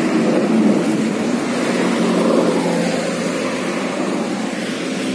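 Steady noise of road traffic passing close by, with the hum of vehicle engines going past.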